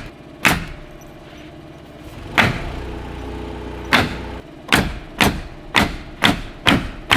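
Nails being driven into roof framing and sheathing: sharp strikes, a few spaced apart at first, then a steady run of about two a second.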